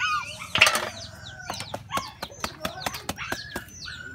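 A bamboo eel trap is shaken and knocked over a plastic basket, sending snail shells and eels clattering out in a string of sharp clicks and knocks, loudest about half a second in. Birds call throughout.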